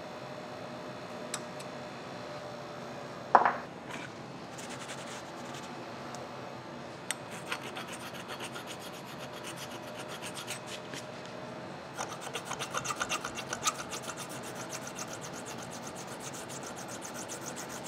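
Small hand file rasping on the metal edge of a bearing housing in quick, even strokes, about four to six a second, strongest about twelve seconds in. One sharp metallic clank about three seconds in, over a faint steady hum.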